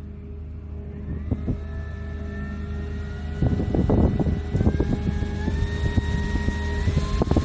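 Handheld mini rechargeable fan running, its electric motor whine stepping upward in pitch as the speed setting is raised, over a steady low hum. A few brief knocks of handling break in near the middle and end.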